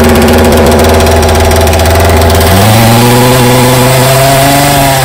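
Husqvarna 545 chainsaw's two-stroke engine running steadily, its pitch stepping up a little about halfway through. The saw is running again on a spark-plug thread repaired with a thread insert.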